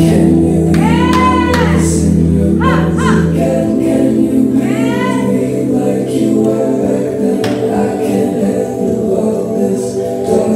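Background music: a song with singing over held bass notes that change every few seconds.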